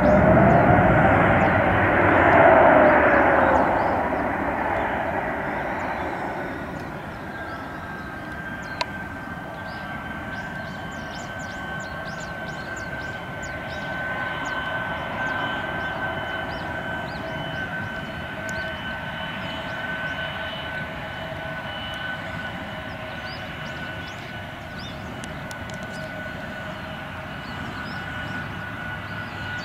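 Airbus A321neo airliner's turbofan engines: a loud rushing roar for the first few seconds that dies away, leaving a steady high whine as the jet rolls slowly along the runway.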